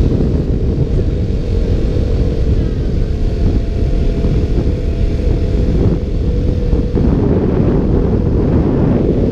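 KTM Duke motorcycle engine running at a steady pitch, heard through wind buffeting a helmet- or bike-mounted action camera's cased microphone. About seven seconds in, the engine note drops out under heavier wind noise.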